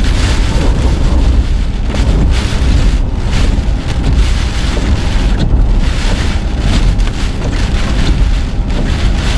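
Hurricane-force wind in a hurricane's eyewall, a loud, unbroken rush that surges again and again in gusts. The gusts buffet the microphone with a heavy low rumble.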